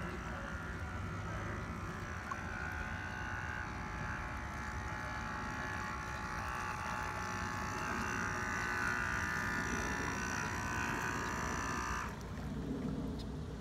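Small motor of a radio-controlled model boat running with a steady whine, growing louder as the boat comes closer, then cutting off abruptly about twelve seconds in.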